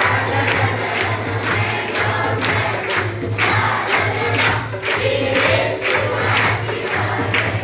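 A large group of children singing together and clapping their hands in a steady beat.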